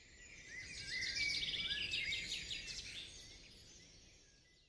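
Birdsong: several small birds chirping and trilling over one another, with quick rising and falling calls. It fades in, then fades out.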